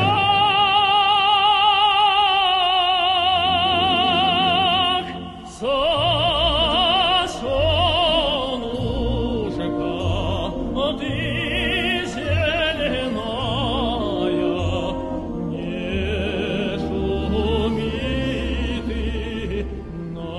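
Music: operatic singing with a wide vibrato over a steady low accompaniment. A long high note is held for about the first five seconds, the sound dips briefly, then more sung phrases follow.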